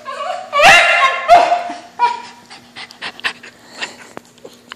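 Whippet mix dog whining, then letting out two loud, high yelps that rise in pitch, one about half a second in and one about a second later, frustrated at a balloon it wants to play with. After that come scattered light clicks and scuffles as the dog moves about.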